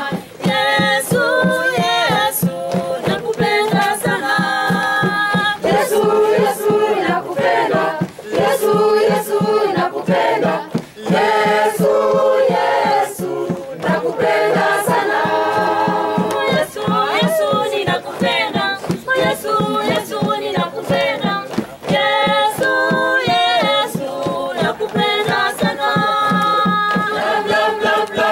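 A group of voices singing a gospel song together in harmony, choir-style, over a steady rhythmic beat.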